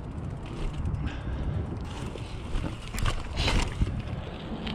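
Mountain bike rolling over a wooden boardwalk and onto concrete: a steady low tyre-and-frame rumble with wind buffeting the microphone, and two short hissing bursts about three seconds in.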